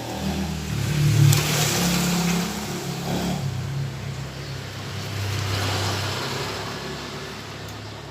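Small single-cylinder petrol engine running, speeding up and easing off twice.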